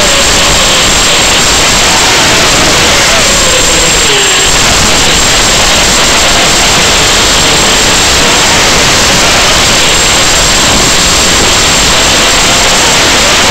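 Loud, steady hiss of static from an analog FPV video link's audio channel, with a thin high whistle held steady over it and faint wavering tones beneath.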